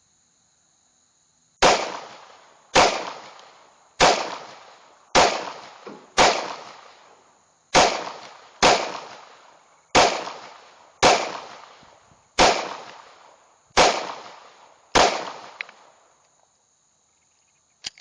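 Twelve shots from a Glock 26 subcompact 9mm pistol, fired at a steady pace of roughly one a second, each with a short echoing tail. A steady high drone of insects runs underneath.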